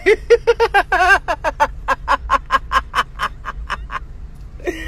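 A woman laughing hard in a long run of rapid 'ha' pulses, about six a second, growing weaker and dying away near the end.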